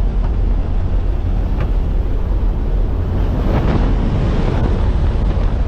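Strong wind rushing over the microphone: a loud, steady, low roar.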